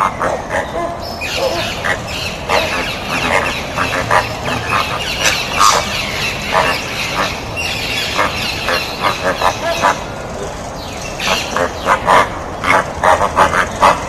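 A flock of flamingos calling, with many short calls overlapping in a dense chatter. It thins out around the middle and picks up again as a quick run of separate calls near the end.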